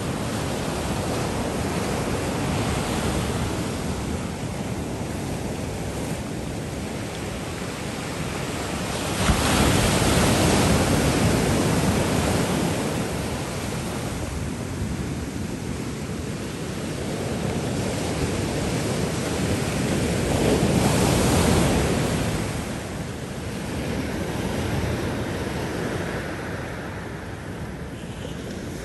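Heavy storm surf: ocean waves breaking on rocks and shore in a loud, steady rushing that swells and ebbs. The surf surges suddenly about a third of the way in, and again about two-thirds through.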